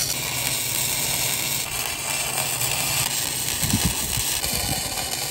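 Electric arc welding on steel: a steady crackling sizzle from the arc as a bead is laid on the trailer's tongue frame.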